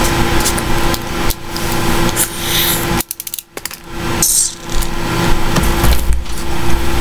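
Handling and rustling of a small squeezable plastic drink bottle as it is worked open, heard over a loud steady hum and hiss from a noisy computer microphone. The hum drops out briefly about three seconds in, with a quick run of clicks.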